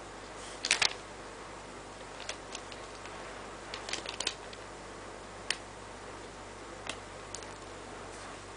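Light, irregular clicks and taps of small plastic kit pieces being handled and fitted together, the loudest a quick double click about a second in and a cluster around the middle, over a steady background hiss.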